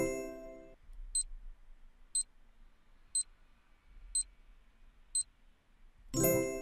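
Quiz countdown timer sound effects. A short bright chime rings at the start, then five short high ticks come one second apart, and a second chime rings about six seconds in as the countdown runs out.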